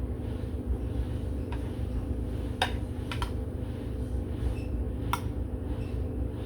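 A few sharp clicks of a kitchen utensil knocking against a dish, spaced a second or so apart, over a steady low hum.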